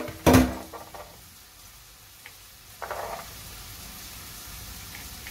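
Two sharp metallic knocks with a short ring at the start, as a metal garlic press is handled against the stainless steel sink. About three seconds in comes a brief scrape as a knife pushes minced garlic into a plastic bowl.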